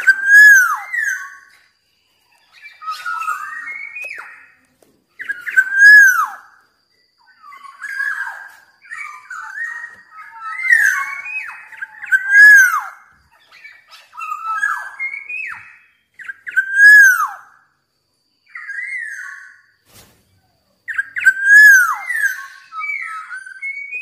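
Black-naped oriole singing: loud, fluty whistled phrases every second or two, many ending in a bright downward-swooping note, with thin high chirps over some of them.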